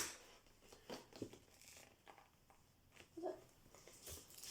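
Near silence, with a few faint clicks and rustles as a small cardboard gift box is handled and opened, and a brief faint sound about three seconds in.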